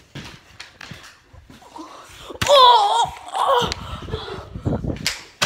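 A boy laughing: a loud, high, wavering laugh breaks out about two and a half seconds in and trails off in breathy bursts, with a sharp knock at the very end.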